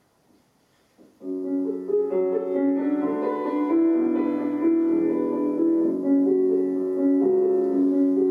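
Piano accompaniment starting about a second in, playing the song's introduction in steady sustained chords before the singing begins.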